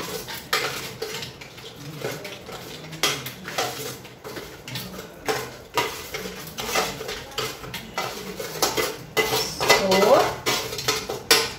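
A spoon scraping and clinking against a plate and a steel mixer-grinder jar as fried dried red chillies are pushed into the jar for grinding: an irregular run of sharp metallic clinks and scrapes.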